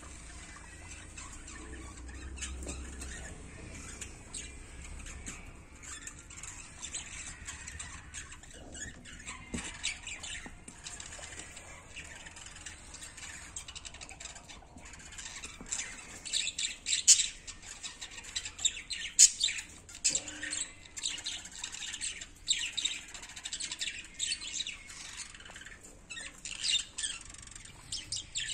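Guinea pigs feeding on a heap of fresh greens, with short, sharp high squeaks that come thick and fast in the second half.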